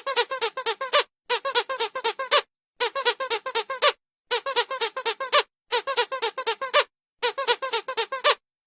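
A rubber squeaky dog toy squeezed rapidly over and over. The squeaks come in six bursts of about seven or eight squeaks each, with short pauses between the bursts, in a very regular pattern.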